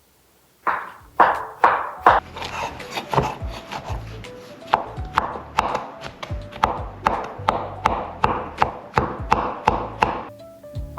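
Kitchen knife chopping mushrooms on a cutting board: quick repeated strokes, about two to three a second, starting about a second in. Background music with a steady bass plays underneath.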